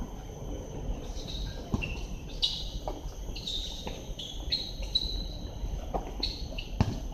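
Basketball game on an outdoor court: a ball bouncing with a few sharp thuds, among short high chirps and squeaks that come again and again.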